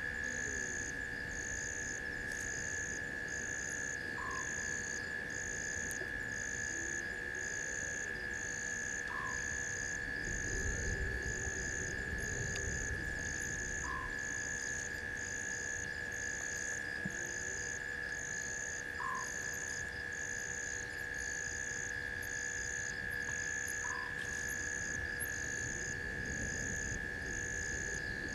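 Night chorus of insects and frogs: a steady shrill tone, a higher trill pulsing about once a second, and a short rising chirp every five seconds or so. Under it is low rustling and crunching from an African elephant browsing in a bush, strongest about ten seconds in and near the end.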